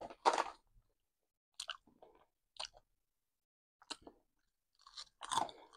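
A person crunching and chewing a potato chip, heard as short separate crunches about a second apart, the first one the loudest, with a few closer together near the end.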